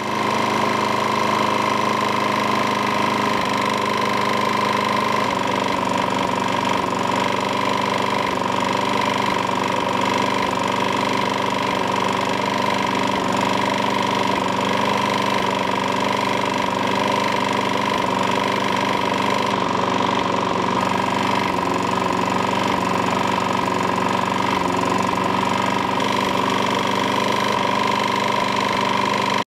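Craftsman walk-behind lawnmower's small single-cylinder engine running steadily at constant speed. This engine has a known knock, smokes and is a little low on compression.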